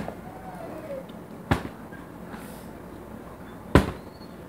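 Plastic water bottle knocking down on the floor after flips: three sharp knocks, about one and a half to two seconds apart.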